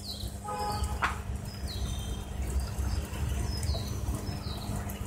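A bird giving short, high, falling chirps every second or two over a steady low rumble, with one sharp click about a second in.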